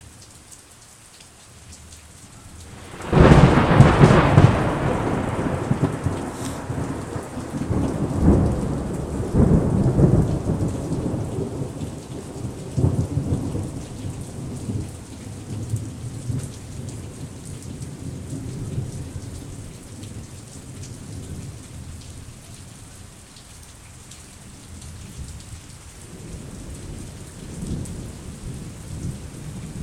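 Thunderstorm: steady rain with a loud, close thunderclap about three seconds in that rolls on in rumbling waves for several seconds before dying away, then rain again with a softer rumble near the end.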